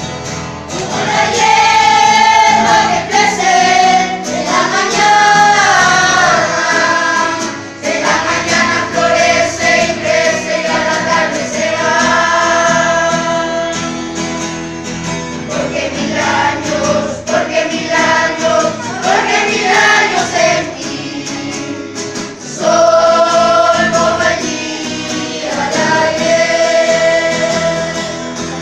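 Group of voices singing a Christian song together, with instrumental backing.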